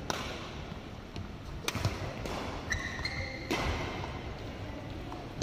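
Badminton rally: several sharp racket strikes on the shuttlecock about a second apart, with footfalls thudding on the court and a brief high squeak about three seconds in, likely from shoes on the court mat.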